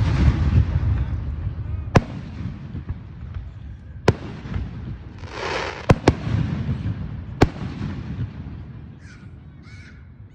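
Aerial fireworks shells bursting overhead: sharp booms about every two seconds, each rolling away in a low rumble, with a short hissing crackle about five seconds in.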